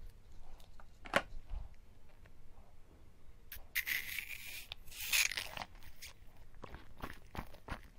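Mouth sucking the filling out of a balloon-skinned bubble jelly ball through a small opening in its skin. A hissing slurp starts about three and a half seconds in and lasts about two seconds, with small wet clicks before and after it.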